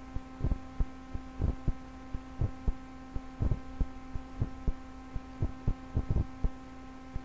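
Steady electrical hum and buzz from the recording chain, with soft low thumps about three times a second, unevenly spaced.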